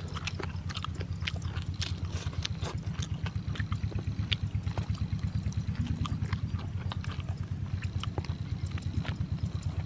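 A small engine running steadily, a low even pulse of about ten beats a second, under the wet clicks and smacks of someone chewing roast chicken.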